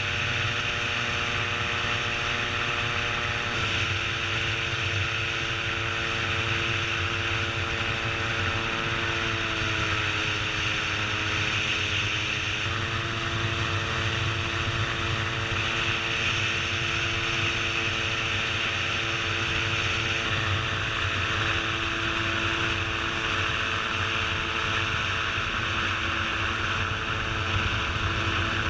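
Gyroplane's engine and propeller running steadily in flight, with wind noise over the microphone; the engine note shifts slightly a few times.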